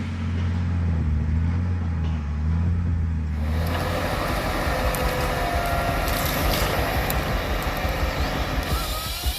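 A heavy vehicle engine runs with a steady low drone. About three and a half seconds in it gives way abruptly to a noisier machine sound with hiss and clatter.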